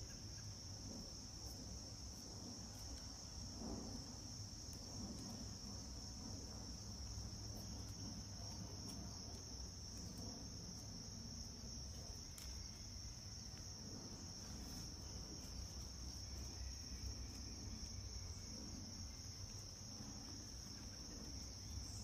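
Steady high-pitched insect chorus, one unbroken trill, over a low background rumble, with a few faint clicks.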